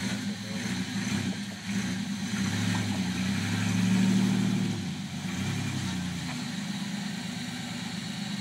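Rock crawler's engine revving under load as it climbs a rock ledge, rising to its loudest about four seconds in, then dropping back to a steady, lower running speed.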